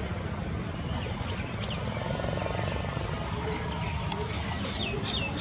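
Small electric RC airplane's brushless motor and propeller buzzing in flight at a distance, under a steady low rumble. Birds chirp several times near the end.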